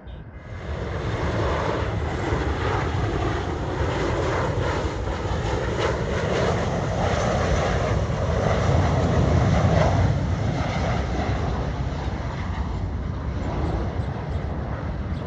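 Jet airliner's engines, a loud steady rushing noise with a deep rumble underneath, starting abruptly about half a second in.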